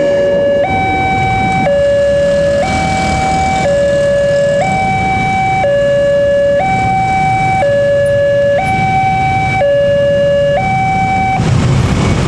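Railway level-crossing warning alarm sounding from a loudspeaker on the crossing signal post: a loud electronic two-tone signal, switching between a low and a higher note about once a second. It stops near the end, leaving the noise of motorbike and car engines.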